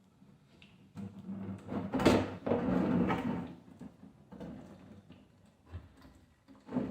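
Metal clunking and scraping on a Chevy 10-bolt rear differential cover as it is worked loose to drain the gear oil. The loudest stretch comes about two seconds in, followed by scattered clicks and a sharp knock near the end.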